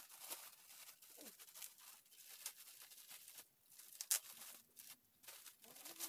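Shiny gift wrapping paper crinkling and tearing as it is pulled off a present. It comes as faint, quick, irregular crackles, with one sharper crackle about four seconds in.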